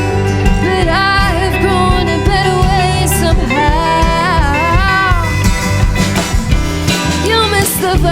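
A live band playing, with a wordless sung melody over guitar and bass.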